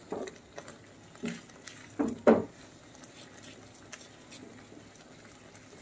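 Silicone spatula stirring and scraping a thick semolina and sugar-syrup mixture in a pan: soft, quiet squishing and scraping, with a couple of louder strokes about two seconds in.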